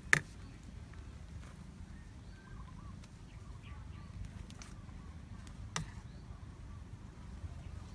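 Two sharp clicks of a metal spoon against a ceramic bowl while a bell pepper is stuffed, one just after the start and one about six seconds in, over a low steady outdoor rumble with faint bird chirps.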